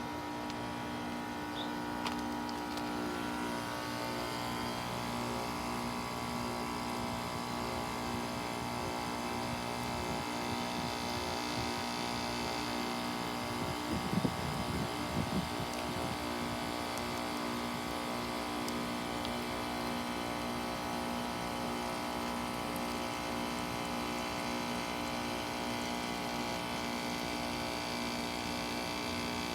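Bryant Legacy Line heat pump outdoor unit running through its defrost cycle, a steady compressor hum with several steady tones over a noisy hiss. A few brief low thumps come about halfway through.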